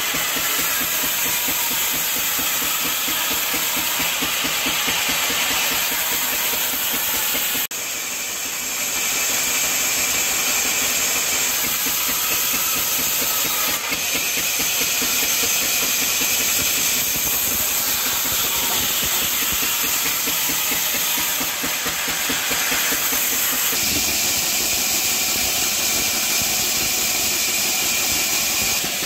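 Diesel engine of a band sawmill running steadily with a fast, even beat, while the band saw blade hisses through a log. The sound shifts abruptly a few times.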